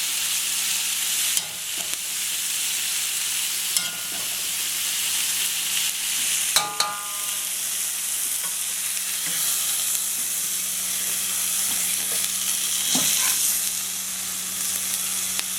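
Stir-fried vegetables, halloumi and chicken sizzling in a hot pan, a steady hiss, with a few sharp clinks and scrapes of a utensil as the food is served out; one clink, about halfway through, rings briefly.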